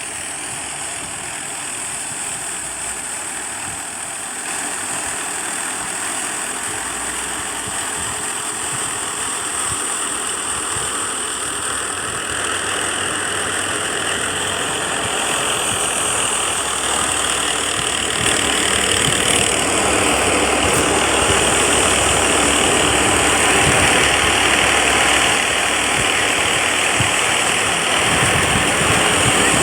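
Massey Ferguson 240 diesel tractor running a tractor-driven wheat thresher: a steady, dense mechanical din of engine and machine. It grows gradually louder, with a step up about two-thirds of the way through.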